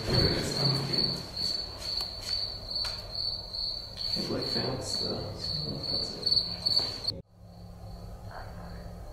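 A cricket chirping in a fast, even series of high pulses, with low rustling and thumps of movement under it. About seven seconds in the sound drops abruptly, and the chirping goes on fainter over a low hum.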